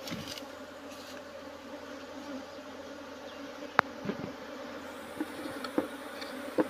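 Honey bees from an opened hive buzzing in a steady hum, with one sharp click about four seconds in and a few fainter clicks near the end.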